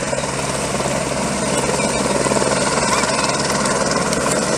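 Firefighting helicopter's rotor and engine, a loud steady rapid beating, as it comes down low over the river to fill its slung water bucket.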